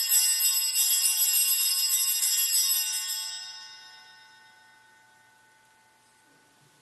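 Altar bells shaken at the elevation of the chalice: a bright, jingling ring that holds for about three seconds, then dies away.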